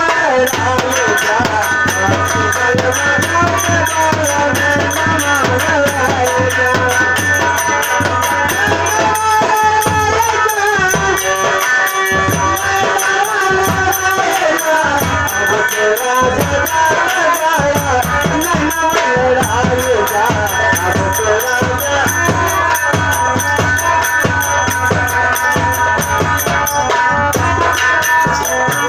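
Live Indian folk stage music for a nautanki dance: drum and rattling percussion keeping a steady beat under a wavering melody line.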